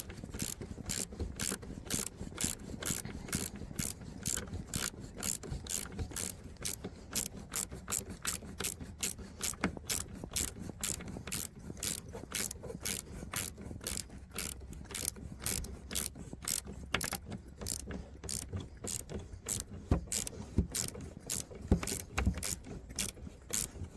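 Ratchet wrench clicking steadily, about four clicks a second, as a fastener is turned by hand.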